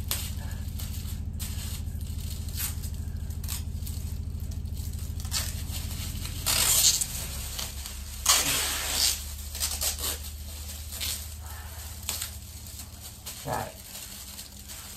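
Aluminium tin foil crinkling and crumpling in short bursts as it is wrapped and pressed around a child's body, the loudest bursts about halfway through, over a low steady hum.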